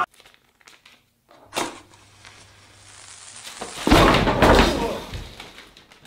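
An explosion-like burst about four seconds in, loud and with a deep low end, as a heap of paper banknotes bursts out and scatters, fading over about a second and a half. A short knock comes about a second and a half in.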